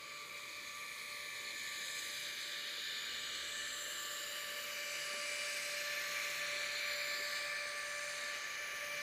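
Steady hiss of skis gliding over snow, slowly growing louder, with a faint steady high-pitched whine on top.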